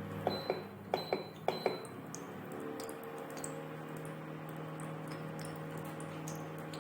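A metal spoon clinking against a metal vessel as ghee is spooned into a kadhai: about six short ringing taps in quick pairs in the first two seconds. After that only a steady low hum remains.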